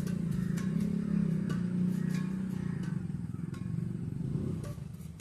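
A motor vehicle's engine running steadily with a low hum, fading out near the end, with a few faint sharp ticks over it.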